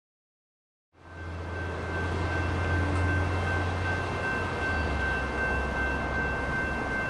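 A Coaster commuter train approaching: a steady low rumble with faint steady high tones above it, cutting in suddenly about a second in after silence.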